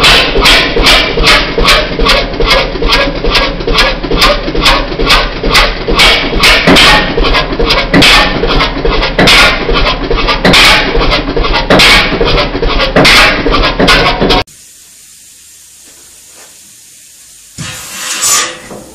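Large old stationary diesel engine with a heavy flywheel running, giving loud, regular exhaust beats about two to three a second. The beats stop abruptly about 14 seconds in, leaving a faint low hum, and a few uneven knocks and puffs from another old engine come in near the end.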